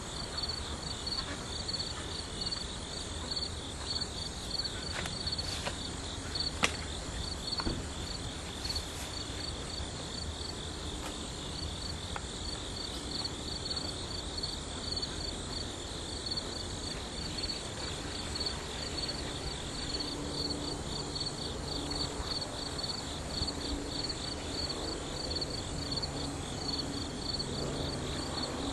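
Crickets chirping in a steady, rapid pulsing trill over a low rumble, with one sharp click about six and a half seconds in. Later on, a faint low buzz of honey bees joins in.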